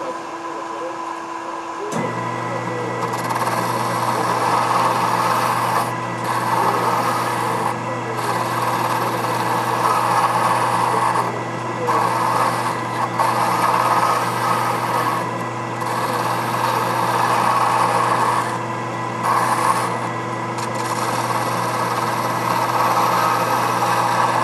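Hand graver cutting SM45C steel on a spinning Boley 8mm watchmaker's lathe: a scraping, rasping cut in repeated passes of a few seconds each with short breaks. Under it the lathe's motor runs with a steady hum, which deepens about two seconds in.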